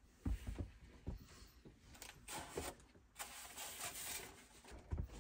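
Groceries being put away in a small RV refrigerator: faint rustling of bags and food packaging, with a few light knocks from items set on the shelves.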